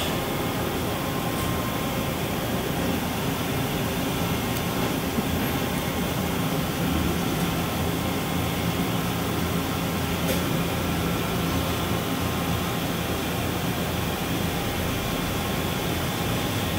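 Steady shop background hum of machinery and ventilation, even throughout, with a few faint ticks.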